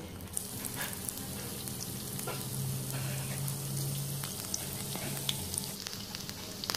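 Split pea fritters deep-frying in hot oil in a stainless steel pan: a steady sizzle with scattered pops and crackles, growing louder about half a second in. A low steady hum runs underneath.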